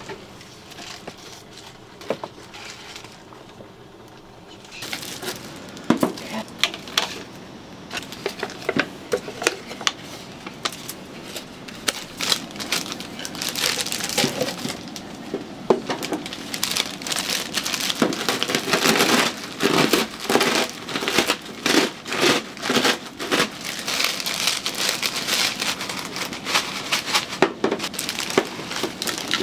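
Cup-noodle packaging crinkling and tearing as it is handled and opened, a busy run of crackles and clicks that picks up several seconds in and gets louder in the second half.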